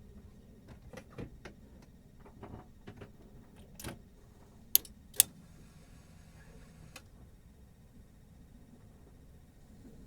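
A few light clicks and knocks, then two sharp clicks about half a second apart near the middle and one fainter click a little later, over faint background quiet.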